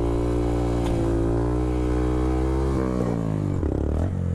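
Honda Grom's 125 cc single-cylinder engine held at steady high revs under throttle, then the revs fall away about three seconds in as the throttle closes.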